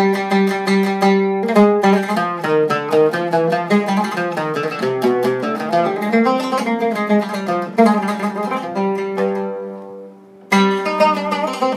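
Zeryab Premium 2 Syrian oud being plucked: a fast tremolo on one held note, then a winding melodic run of single notes. The sound dies away briefly a little before the end, then the playing picks up again.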